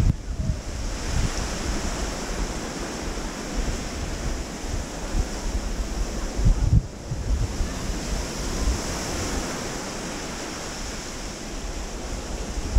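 Small waves washing in and out on a sandy shore, swelling and fading over several seconds, with wind buffeting the microphone in low gusts, strongest near the start and about halfway through.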